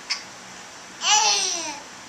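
An infant's loud, high-pitched babbling squeal about a second in, sliding down in pitch over most of a second, after a brief sharp sound right at the start.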